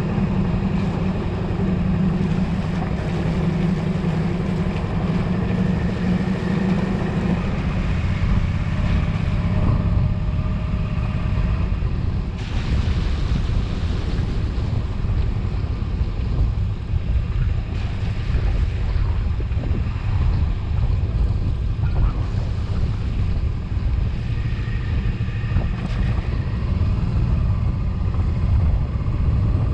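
Suzuki V-Strom motorcycle's V-twin engine running at a steady cruise, with wind rushing over the microphone. The engine note is clear for the first several seconds, then sinks mostly under the wind noise.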